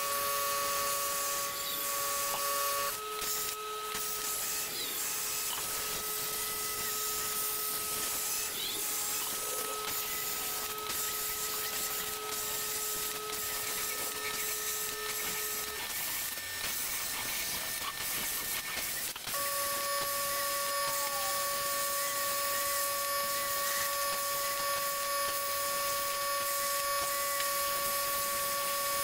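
Plasma cutter arc hissing as a CNC plasma table cuts 3/16-inch mild steel. High steady whining tones from the moving table run over the hiss, changing pitch about three seconds in and again about nineteen seconds in, where the hiss also dips briefly.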